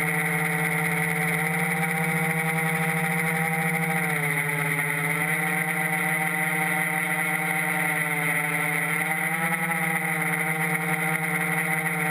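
Three-motor T-copter's brushless outrunner motors and propellers humming steadily in flight, a droning tone whose pitch dips slightly about four seconds in and again around nine seconds.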